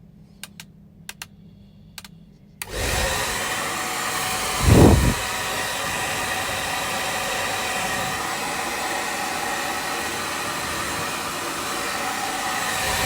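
A few sharp clicks, then a hair dryer switches on a little under three seconds in and blows steadily. About five seconds in there is a brief, louder low rumble.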